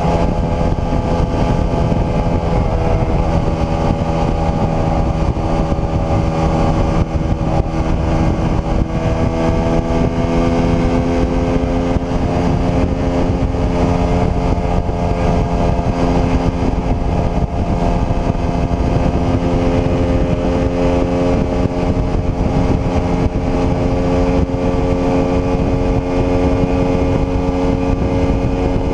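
Small sport motorcycle's engine running steadily at cruising speed, with heavy wind rush on the handlebar-mounted camera. The engine note climbs slowly about ten seconds in, then holds steady.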